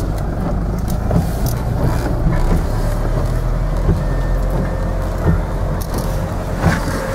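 Four-wheel-drive vehicle driving on a wet road, heard from inside the cabin: a steady low rumble of engine and road noise.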